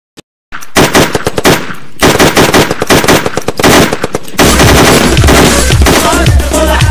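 Machine-gun fire in long rapid bursts from a mounted belt-fed machine gun. About two-thirds of the way through, music with a heavy bass beat comes in under the continuing shots.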